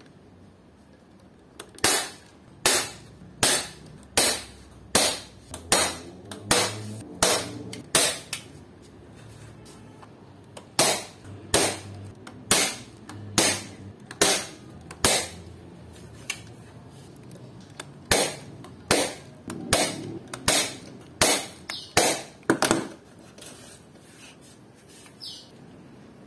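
Hand staple gun firing staples through aluminum screen into a pine frame: a series of sharp snaps a bit under a second apart, in three runs with short pauses between, stopping near the end.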